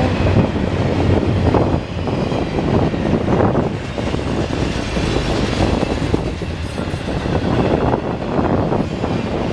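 Norfolk Southern intermodal freight cars, carrying double-stack containers and highway trailers, rolling past: a loud, steady rumble of steel wheels on rail that swells and dips every second or so.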